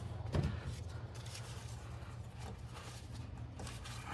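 Faint rustling and scraping of hands working insulation out from around a car engine's intake area, with scattered small clicks, over a steady low hum. A short low sound stands out about half a second in.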